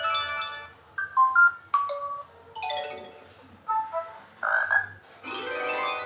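Poco X3 notification tones previewed one after another through the phone's speaker: about five or six short chimes and jingles in quick succession, each a different tone as a new one is tapped in the list.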